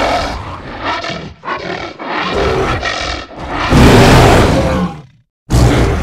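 Made-up creature sound effect for a gorilla-tiger hybrid: a run of short, rough growls, then a long, loud roar about four seconds in. After a brief break, another roar starts near the end.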